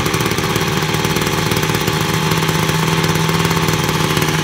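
Mintox multi-tool strimmer's small two-stroke engine running steadily, just pull-started from cold with the choke on.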